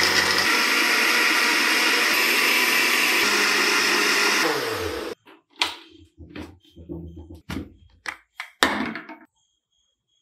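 Countertop blender running steadily while blending a milkshake, then winding down and stopping about five seconds in. After it, a few short knocks and clunks as the plastic blender jug is handled on its base.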